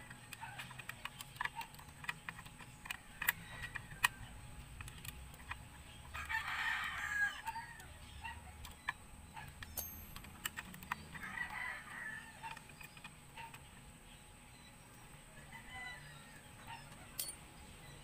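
A rooster crowing once, about six seconds in, with a fainter call a few seconds later. Scattered light clicks from hand tools working on the motorcycle's shifter linkage sound between the calls.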